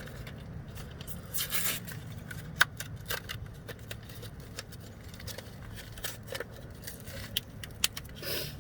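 Small scattered clicks and short rustles of a new replacement bulb being picked up and handled, over a low steady hum.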